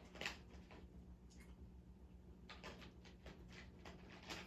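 Near silence with a faint low hum and a few scattered light clicks and ticks, like small handling noises.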